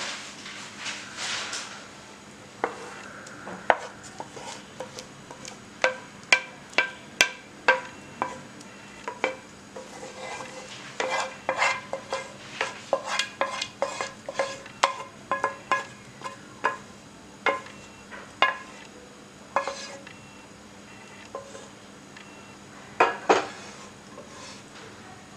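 A spatula scraping and knocking against a metal pan while thick milk pudding is scraped out of it into a cake tin. There are many short knocks and scrapes, each with a brief metallic ring, coming thick and fast in the middle and twice more near the end.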